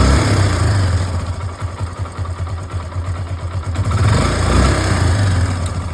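Hero Glamour motorcycle's single-cylinder four-stroke engine running, swelling a little at the start and again about four seconds in. A new timing-chain tensioner has just been fitted, and the ticking chain rattle is gone: the engine runs without the noise of a slack timing chain.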